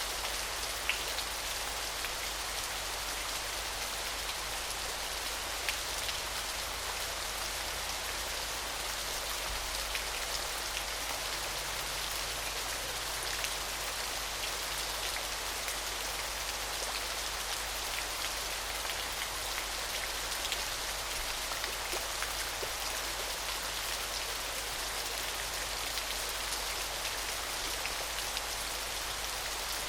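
Small waterfall splashing steadily: an even, bright rush of falling water with scattered tiny drips and splashes.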